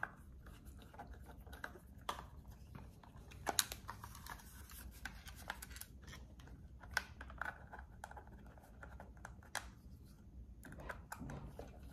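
Faint, scattered clicks and light scrapes of a small Phillips screwdriver and hands working a small device case while its tiny side screws are driven in, with a few sharper clicks spread through.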